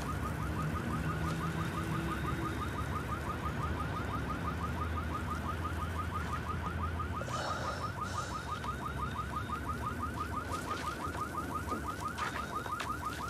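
Car alarm warbling in a fast, even rhythm, set off by a nearby explosion, over a low rumble.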